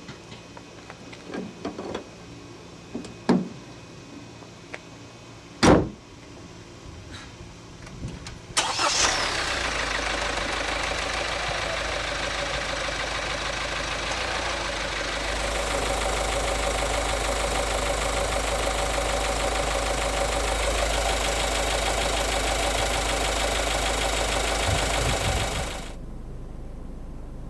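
A few separate knocks and clicks, then the SsangYong Tivoli Air's engine starts about eight seconds in and runs steadily for some seventeen seconds before it is switched off near the end. This is the engine run on its freshly changed oil.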